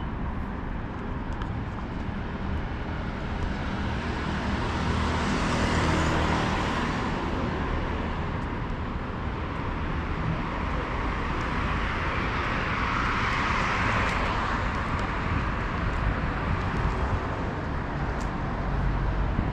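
Cars driving past on a city street over a steady traffic hum. Two pass-bys swell up and fade, one about six seconds in and another about thirteen seconds in.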